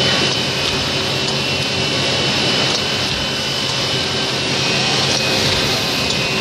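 Automatic drilling machine for wooden brackets running steadily: a continuous motor whine over a loud even noise, with no pauses or single strikes.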